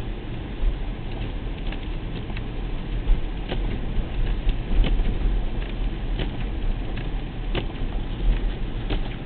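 Car driving on a snowy highway, heard from inside: a steady low road rumble with short sharp ticks every second or so.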